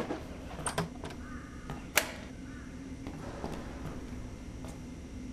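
Quiet shed with a low steady hum, a few small knocks and clicks from someone moving about, and one sharp click about two seconds in.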